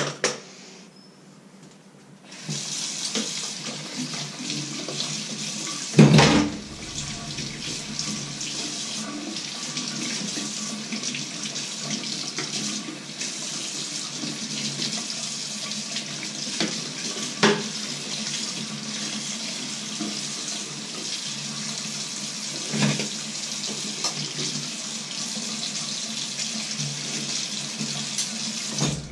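Kitchen tap running into a stainless-steel sink as things are washed by hand, starting about two seconds in. A few knocks from items bumped in the sink, the loudest early on.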